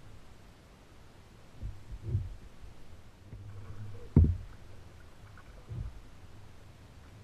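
Dull low thuds of knocks against a plastic kayak's hull as the angler shifts and handles gear, four in all. The loudest comes about four seconds in.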